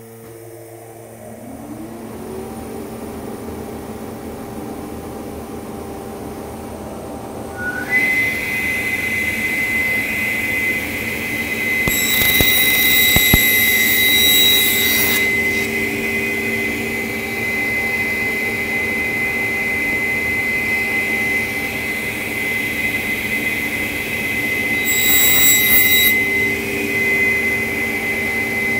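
Table saw running up and then running steadily with a high whine, making two cutting passes through Baltic birch plywood (about 12 and 25 seconds in) as a vacuum-clamped pattern is pushed along the pattern-cutting fence.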